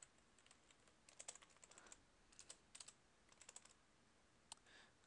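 Faint computer keyboard typing: a few short runs of keystrokes, with one lone key click near the end.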